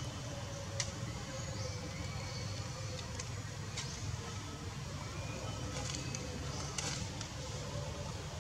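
Steady low outdoor rumble with a few faint, scattered clicks.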